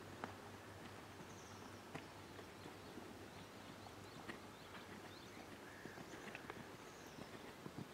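Faint hoofbeats of a four-year-old Holsteiner mare trotting on a sand arena, heard as soft, scattered thuds and clicks over a steady low hum.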